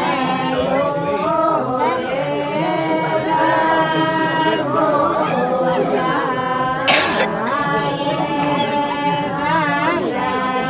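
Unaccompanied voices singing a folk wedding song for the tel (oil) ceremony, with long held notes that waver in pitch. About seven seconds in there is a brief burst of hissy noise.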